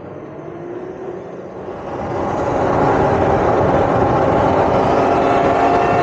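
Electric dirt bikes riding in a pack: motors whining over the rush of wind on the helmet microphone. The sound grows louder about two seconds in, then holds steady.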